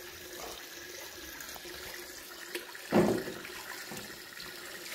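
Tap water running steadily into a steel basin while small kothimba melons are rubbed and swished by hand in the water, with one brief louder burst about three seconds in.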